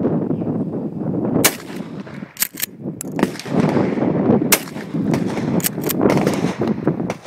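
Two loud shotgun blasts from a Mossberg pump-action shotgun, about three seconds apart. About a second after each comes a quick pair of sharp clicks, which fits the pump being racked to chamber the next shell. A steady rushing noise runs underneath.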